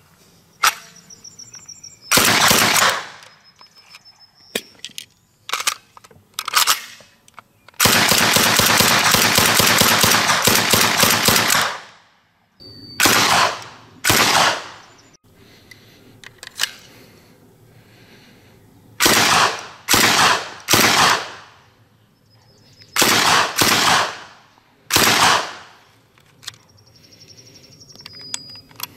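STEN Mk II 9 mm submachine gun firing on full auto: a series of short bursts, and about eight seconds in one long burst of about four seconds, each burst a rapid string of shots.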